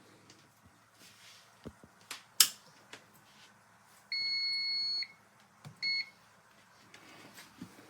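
A sharp click about two seconds in, then the COSORI dual air fryer's control panel beeps: one long steady beep of about a second, and a short beep a moment later.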